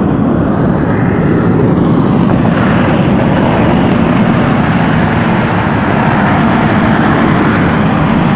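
Mount Bromo's volcanic crater rumbling: a loud, steady roar that does not let up.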